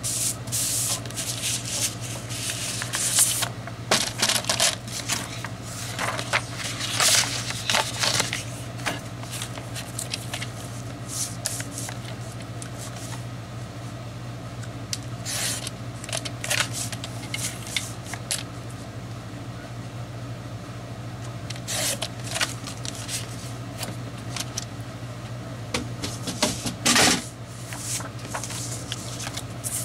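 Paper and cardstock being handled on a cutting mat: irregular rustling, sliding and light clicks, with a louder rasp a few seconds before the end. A steady low hum runs underneath.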